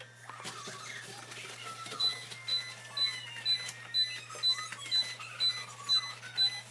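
Refrigerator door-open alarm beeping, a high electronic beep repeating evenly about twice a second, starting about two seconds in: the sign of a fridge door left open.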